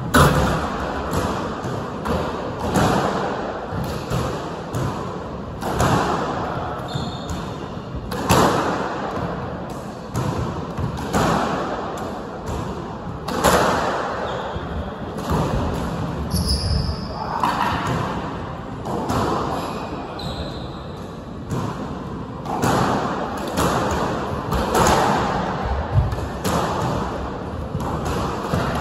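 Squash rally: sharp racket strikes and the ball smacking off the court walls and glass every second or two, echoing in the enclosed court, with a few short high squeaks of court shoes on the wooden floor.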